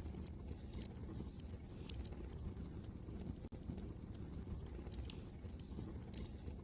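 Wood fire crackling in a fireplace: irregular sharp pops and snaps over a steady low rumble of wind.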